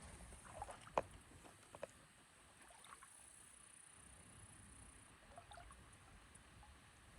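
Near silence outdoors, broken by a few short, faint clicks and taps, the sharpest about a second in and another just before two seconds, over a low rumble and a faint steady high hiss.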